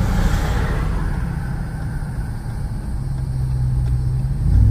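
Ram TRX's supercharged 6.2-litre V8, heard from inside the cab, running at low revs in slow traffic; its note steadies about three seconds in and grows louder just before the end.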